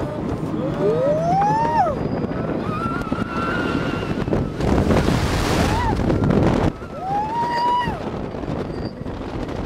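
Wooden roller coaster train running fast along its wooden track, a steady rumble mixed with wind on the microphone, and riders screaming several times in rising-and-falling shrieks. In the middle the noise grows louder and harsher for about two seconds through a tunnel, then drops suddenly.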